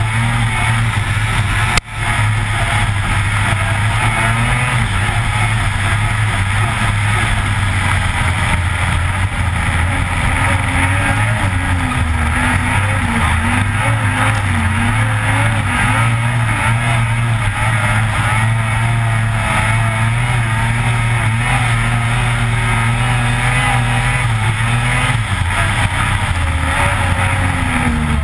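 Lynx Rave RE 600 snowmobile's two-stroke twin running hard along a bumpy trail, close to the engine, its revs rising and falling steadily. The sound briefly cuts out about two seconds in.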